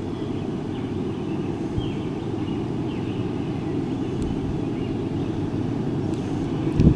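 Diesel locomotives of an approaching freight train: a low, steady rumble that slowly grows louder, with a brief thump near the end.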